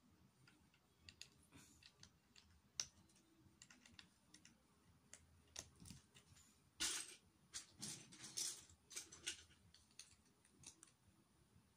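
Faint clicking and clattering of small plastic Lego bricks being picked through and handled, scattered single clicks with a louder spell of rattling rummaging about seven seconds in.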